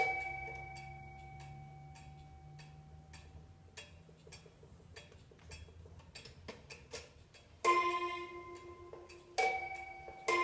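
Restored Gustav Becker pendulum wall clock striking on two notes of different pitch. One note at the start rings out and dies away over about three seconds, with the pendulum's steady tick under it. Strikes resume near the end, two more notes about a second and a half apart.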